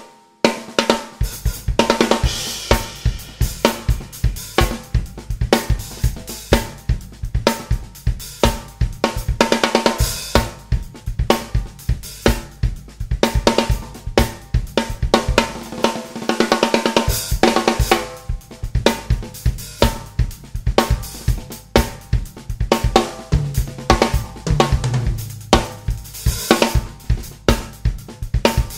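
Drum kit played in a steady groove showcasing a high-tuned Mapex Black Panther 14 x 5.5-inch metal snare drum, with a bright ringing snare, bass drum, hi-hat and cymbals. The playing starts about a second in.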